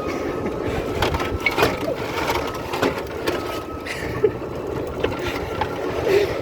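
Golf cart driving over pavement: a steady running noise with a faint steady high tone, and repeated clicks and rattles from the cart.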